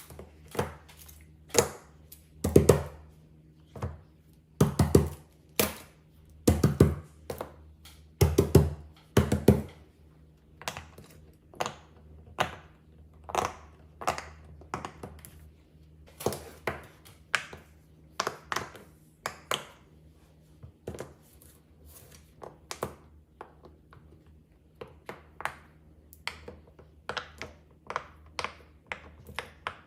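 Fidget toys being handled and set down on a hard surface: an uneven run of taps and clicks, with heavier thuds during the first ten seconds or so.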